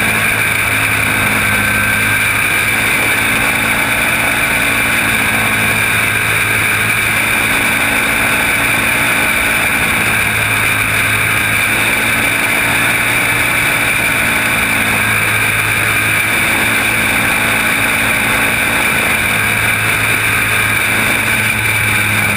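Caged racing kart's engine running hard at racing speed, a steady, unbroken drone heard from on board.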